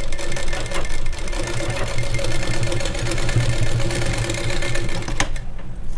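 Sewing machine running steadily as it stitches a seam through layered blouse fabric, stopping with a click about five seconds in.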